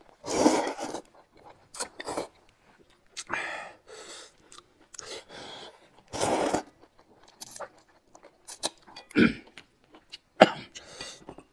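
Loud slurping of hot and sour noodles (suanla fen) from a bowl, two long slurps about half a second and about six seconds in, with chewing and short clicks and smacks between them.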